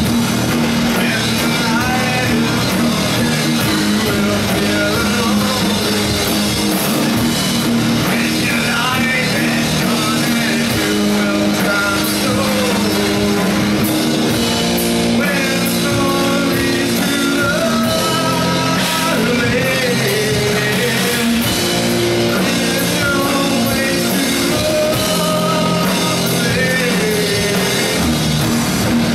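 Rock band playing live: electric guitars and a drum kit, with vocals.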